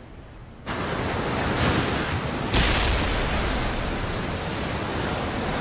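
Heavy sea waves crashing and rushing against a ship's hull. The noise comes in suddenly under a second in and surges louder about two and a half seconds in.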